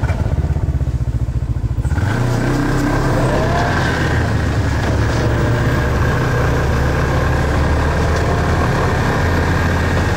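Snowmobile engine running at a pulsing idle just after starting, then revving up about two seconds in and running steadily as the machine drives over the snow.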